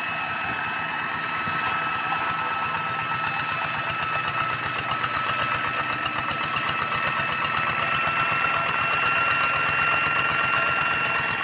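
Walk-behind hand tractor's single-cylinder diesel engine chugging fast and evenly while ploughing, with a thin steady high whine over it; it grows a little louder toward the end.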